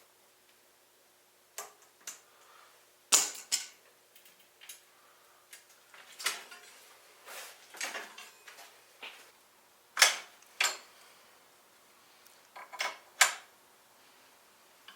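Scattered sharp metallic clinks and clicks of hand tools on bicycle drivetrain parts, about a dozen separate taps with quiet gaps between, as the parts are being taken off a mountain bike.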